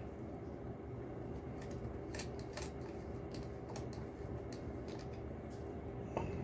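Faint, scattered small clicks and taps of a microscope being handled while its lens is changed, over a steady low hum.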